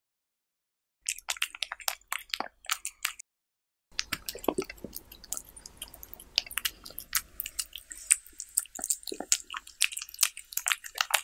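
A cat eating from a ceramic plate, close to the microphone: quick wet smacking and chewing clicks. It starts about a second in, pauses briefly around three seconds in, then goes on densely to the end.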